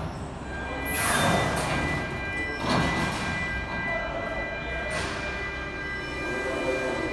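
Palletizer and conveyor machinery running: a steady hum with several high steady whines, broken by loud rushing noises about a second in and near three seconds, and a sharper knock near five seconds.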